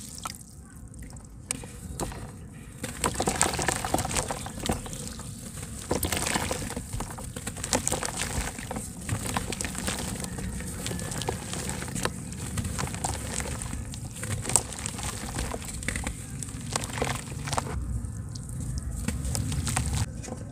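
Water sloshing and splashing in a bucket as hands swirl it and work a handmade slab of soft red dirt that is crumbling under water, with a steady run of small crackles. The splashing and crackling ease off near the end.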